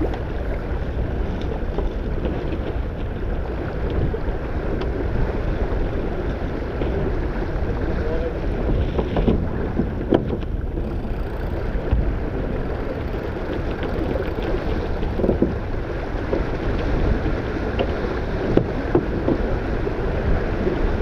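Wind buffeting the microphone and water rushing along the hull of a small sailing yacht under way, with a few short knocks from gear or crew on deck.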